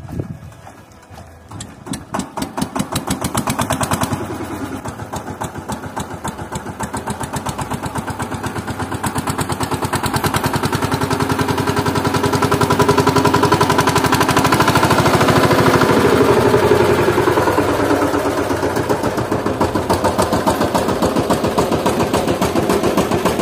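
Single-cylinder diesel engine of a VST 130 DI power tiller chugging. A few separate firing strokes come in about two seconds in, then it runs steadily, getting faster and louder up to about the middle, as it works the machine up a soft, muddy slope.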